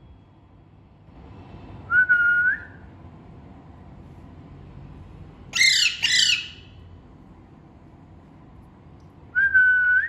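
Alexandrine parakeet calling: a short whistle about two seconds in, a pair of loud harsh squawks just before the six-second mark, and another short whistle near the end.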